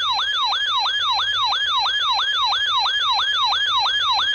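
A weather radio receiver's siren alarm going off: a loud electronic yelp sweeping up and down about three times a second. It is set off by the weekly test signal of a NOAA weather radio station.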